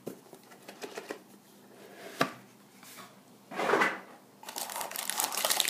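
Hands handling a white cardboard trading-card hobby box: a few light taps and clicks, a short cardboard scrape a little past halfway as the box insert is slid and lifted out, then steady rustling and crinkling of the card packaging near the end.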